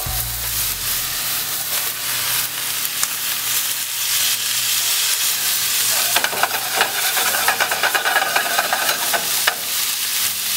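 Sliced bell peppers and onions sizzling in a hot non-stick skillet with chicken tenders, a steady frying hiss as the vegetables' moisture hits the drying pan. From about six seconds in they are stirred around the pan for a few seconds, adding a busier crackle and clatter.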